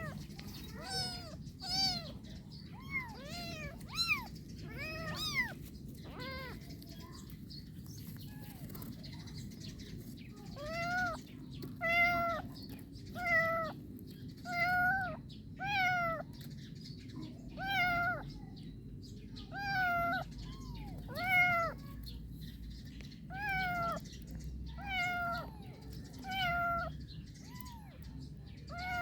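Kitten meowing over and over, high-pitched calls that each rise and fall. The calls come quick and close at first, break off for a few seconds, then come back steadily about every second and a half.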